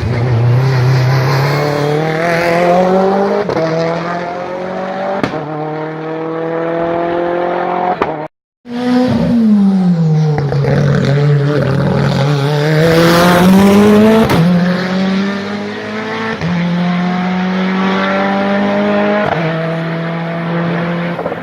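Race car engine at full throttle, revs climbing and dropping back at each quick upshift as the car accelerates hard up the hill. After a short break, the engine note falls, then climbs again through several more upshifts.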